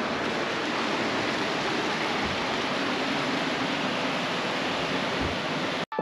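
Waterfall rushing: a steady, even noise of falling water that cuts off suddenly near the end.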